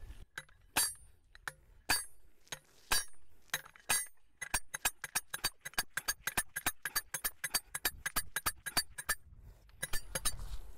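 Steel sliding hammer of a dual-mass dynamic cone penetrometer striking its anvil with sharp metallic clanks, driving the cone rod into the soil. A few blows come about a second apart, then a fast run of about four blows a second.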